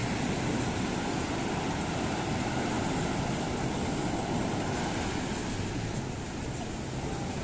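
Ocean surf breaking and washing onto the beach: a steady, continuous rush of waves, with wind on the microphone.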